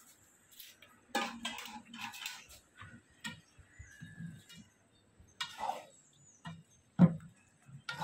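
Metal slotted spatula stirring chicken pieces in broth in a large metal pot, scraping and knocking against the pot in irregular strokes, with a sharp clank about seven seconds in.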